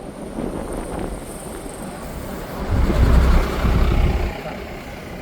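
Steady road noise from a moving vehicle. A louder low rumble swells past the middle and dies away about a second and a half later.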